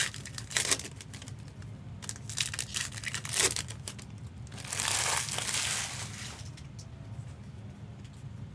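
Foil trading-card pack being crinkled and torn open by hand: scattered sharp crackles, then a louder stretch of rustling and tearing about five seconds in.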